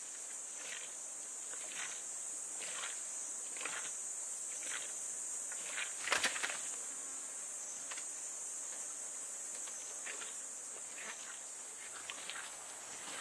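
A steady high drone of insects buzzing in the heat, with faint soft ticks about once a second and one brief louder scuffle about six seconds in.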